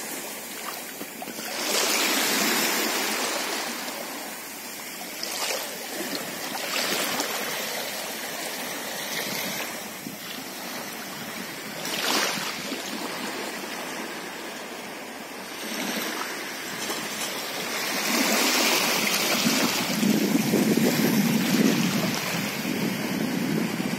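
Small waves lapping and washing in shallow sea water, swelling into louder surges now and then, with some wind noise on the microphone.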